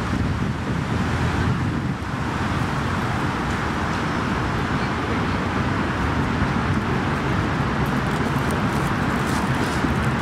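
Steady hum of road traffic from passing cars, mixed with wind buffeting the microphone.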